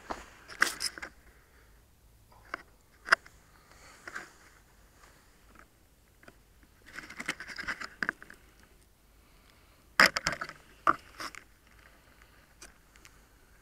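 Handling noise on a small onboard camera as it is picked up out of the grass and moved about: grass rustling and scraping against the housing, with sharp knocks and clatters at irregular moments, the loudest a cluster about ten seconds in.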